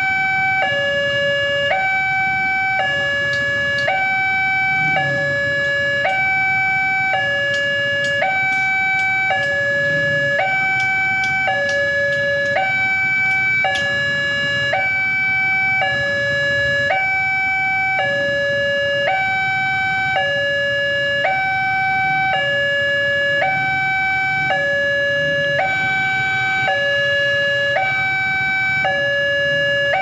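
Railway level-crossing warning alarm sounding from the horn loudspeaker on the crossing post: an electronic two-tone signal alternating steadily between a higher and a lower note, each held about a second, signalling that the crossing is closed for an approaching train.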